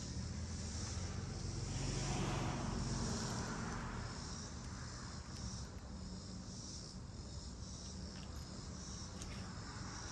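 Insects chirping steadily, with a passing vehicle's low hum that swells about two seconds in and fades again.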